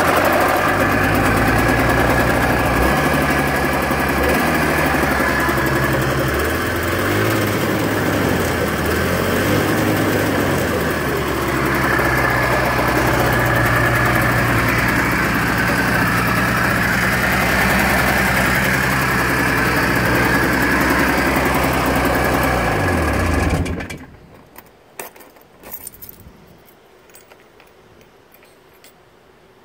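1989 Yamaha Phazer snowmobile's two-stroke twin engine catching and running, its pitch wavering up and down a little, for about 23 seconds before it is shut off abruptly. A few faint clicks follow.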